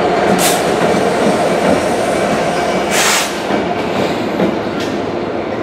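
GB Railfreight Class 66 diesel locomotive, with its two-stroke EMD V12 engine, running past and moving away. Its engine and wheels on the rails make a dense steady rumble, with two short hissing bursts about half a second and three seconds in, and the sound eases off in the second half.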